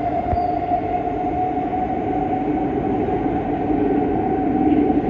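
Kawasaki Heavy Industries C151 metro train running away into the tunnel after departing: a steady rumble with a constant hum.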